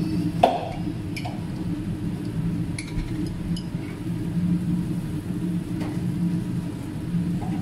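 Sauce bubbling at a hard boil in a wok over a steady low hum, with a sharp clink about half a second in and a few lighter ticks after.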